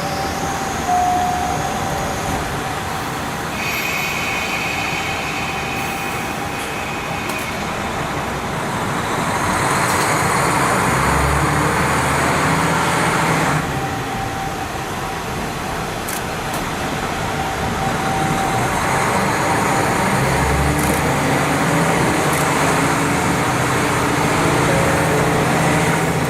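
KiHa 40 diesel railcar under way, heard through a wide-open window: steady rush of wheels on the rails, with the diesel engine's low note swelling twice. A thin high squeal lasts a few seconds near the start.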